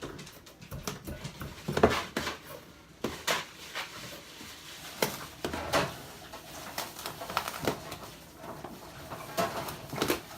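Kitchen dishes and utensils clattering: scattered knocks and clinks, several sharper ones, from handling bowls, measuring cups and spoons while mixing batter.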